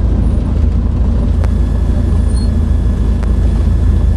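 Cessna 152's four-cylinder Lycoming engine running steadily at low taxi power, heard from inside the cockpit as a constant low drone.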